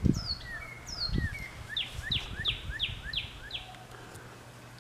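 A songbird singing: a few high down-slurred notes, then a run of six quick whistles sweeping downward, about three a second, that stop a little before the end. Two low thumps sound near the start and about a second in.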